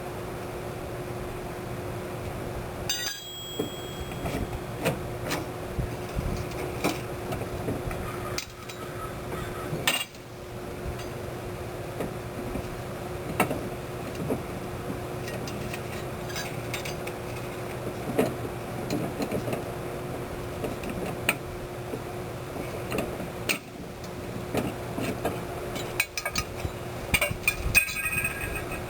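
Light metallic clinks, taps and knocks of tools and parts being handled, scattered irregularly over a steady low hum, with a few abrupt breaks where the sound cuts.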